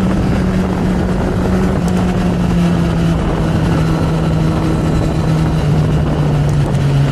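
Kawasaki Z900's inline-four engine running under way, its note falling slowly and steadily as the revs drop, over a steady rush of wind and road noise.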